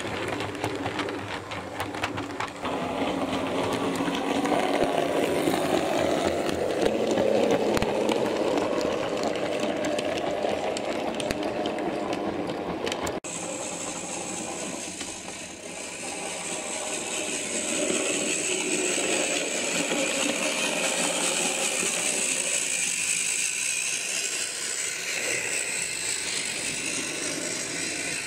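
Model railway train running on the track: small electric motor whirring with fine clicking of wheels over rail joints as the coaches pass close by. After an abrupt break about halfway, a higher-pitched motor whir builds up and holds steady.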